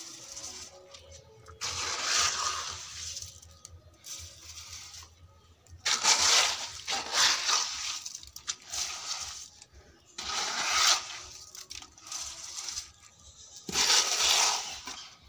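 Wet concrete mix with gravel being scooped from a metal pan and dumped into a plastic tub mould, in about four gritty scraping, sloshing spells with pauses between.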